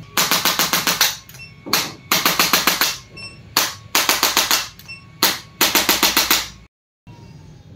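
Rapid mechanical clicking in four bursts of about a second each, about ten sharp clicks a second.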